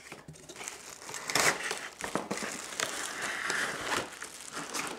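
Packaging in a cardboard box rustling and crinkling, with scattered light knocks, as steam mop parts are pulled out of the box.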